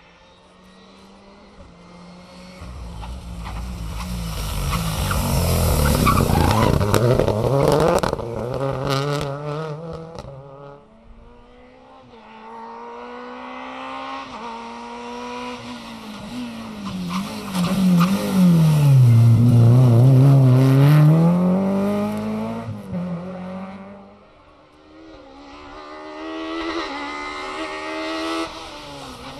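Three rally cars passing one after another: a Renault Clio R3, a Group N Renault Clio and a Citroën Saxo kit car, each engine swelling loud as it comes by under hard acceleration. The middle car's engine note drops and then climbs again as it brakes and gets back on the throttle.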